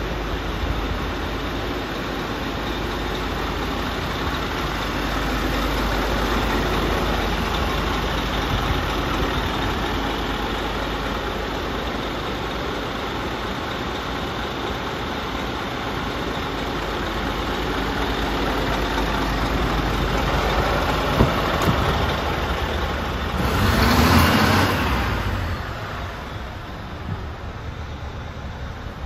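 Scania P400 tipper truck's diesel engine idling steadily, a low rumble. Near the end a louder rushing burst lasts about two seconds, after which the idle is quieter.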